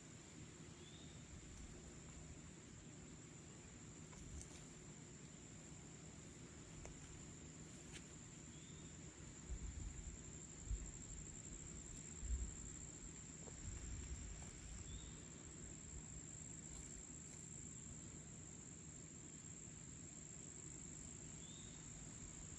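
Faint, steady high-pitched trilling of crickets, with a short rising chirp about every six or seven seconds. Wind buffets the microphone in low rumbling gusts about halfway through.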